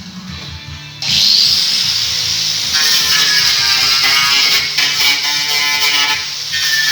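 Pneumatic impact wrench switching on about a second in and running, driving the clamp-and-socket press that pushes rubber bushings into a rear subframe. Background music plays throughout.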